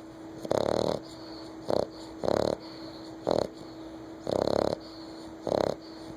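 American Bulldog puppy, nine weeks old, snoring loudly in its sleep. The snores come with each breath, alternating longer and shorter, about six of them.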